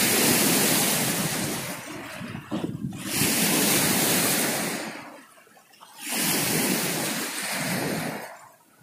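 Sea waves washing in, a rushing noise that swells and fades in three long surges with short quiet gaps between them.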